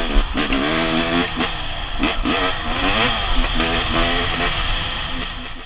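Off-road dirt bike engines heard from the rider's helmet camera, revving up and dropping back again and again as the bikes accelerate and shift along a gravel road, over a steady rush of wind and tyre noise. The sound cuts off abruptly at the end.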